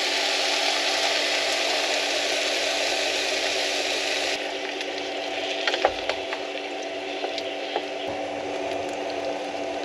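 Vegetables sizzling in a saucepan. The sizzle drops sharply about four seconds in as poured cooking sauce covers them, leaving softer bubbling with a few clicks of a wooden spatula stirring against the pan. A steady hum runs underneath.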